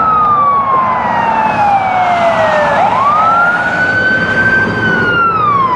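Fire truck siren wailing: its pitch falls slowly for about three seconds, swings back up and holds high, then starts falling again near the end, with traffic noise underneath.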